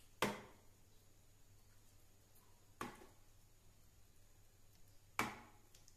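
A steel spoon knocking lightly against steel dishes three times, about two and a half seconds apart, each a short sharp clink with a brief ring, as curd is scooped from a bowl and put onto puris; otherwise quiet.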